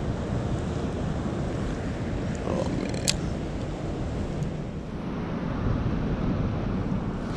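Creek water rushing steadily, with wind buffeting the microphone; a single sharp click about three seconds in.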